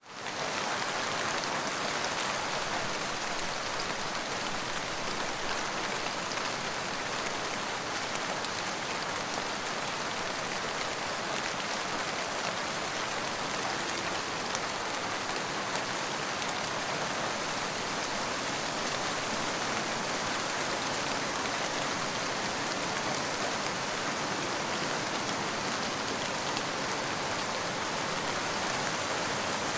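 Steady rain falling and pattering on surfaces, an even hiss with scattered drop ticks, fading in over the first half second.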